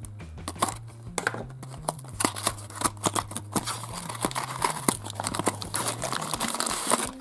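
Packaging of a Sweet Box candy-and-toy box crinkling and clicking as it is opened by hand, with sharp crackles that grow denser from about two seconds in. Quiet background music runs underneath.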